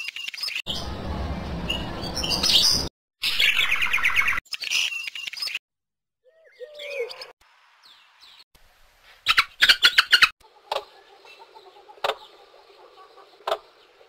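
A run of short recorded bird calls and songs from different species, played back one after another from a bird-sounds phone app. Each clip starts and stops abruptly, with short gaps between them, and the second half is quieter, with a few sharp clicks.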